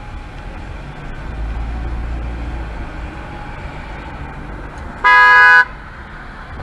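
Steady low road and engine rumble of a moving car, then one short car horn blast on a single steady note, about half a second long, near the end.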